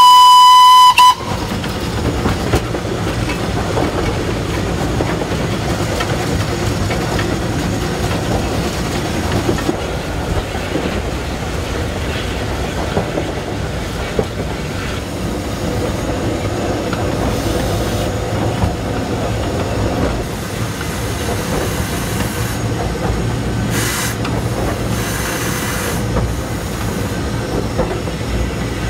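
A steam locomotive whistle, pulled by its cord on the footplate of LSWR T9 4-4-0 No. 30120, sounds one short, loud blast of about a second that cuts off sharply. It is followed by the steady noise of the locomotive running along, with its wheels clattering on the rails, heard from the cab.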